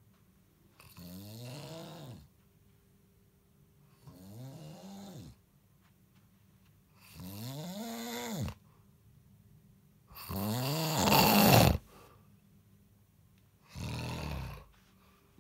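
A man snoring loudly, five snores about three seconds apart, each rising and then falling in pitch. The fourth snore is the loudest and raspiest.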